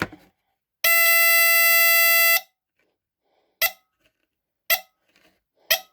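1978 Westclox Smoke Signal travel smoke alarm sounding its horn once, a steady buzzing alarm tone held for about a second and a half, then short sharp clicks about once a second. It is the same kind of horn as the full-size Westclox alarm, only quieter.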